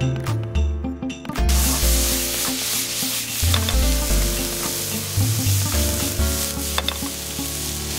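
Egg fried rice sizzling in a hot frying pan as it is stirred and tossed with a ladle, with a few knocks of the ladle against the pan. The sizzle swells loud about a second and a half in.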